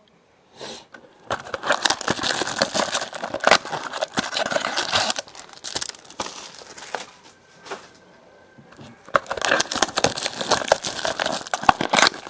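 Plastic wrapping on a trading-card box and its packs being crinkled and torn open, in two long spells of crackling with a short lull between them.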